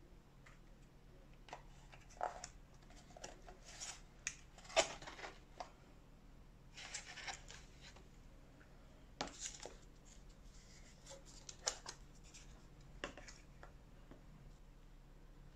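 Plastic fast-food dessert packaging being handled: scattered clicks, crinkles and scrapes as the dome lid comes off a caramel sundae cup and the cup is picked up.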